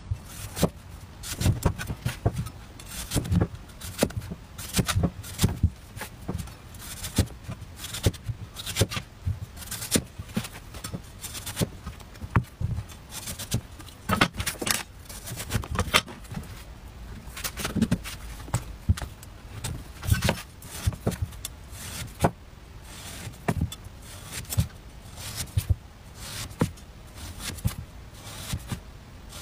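A cleaver cutting a firm watermelon radish on a wooden chopping board: crisp cuts through the root and knocks of the blade on the board, at an irregular pace, often several in quick succession.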